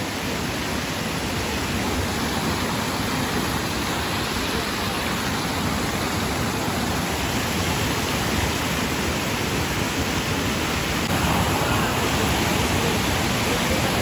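Hot-spring water rushing steadily over travertine terraces, the hiss of a small waterfall, growing a little louder about eleven seconds in.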